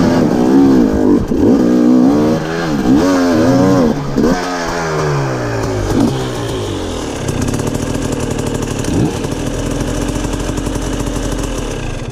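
Dirt bike engine revved in quick repeated blips of the throttle, then settling to a lower, steady run with one brief rev about nine seconds in.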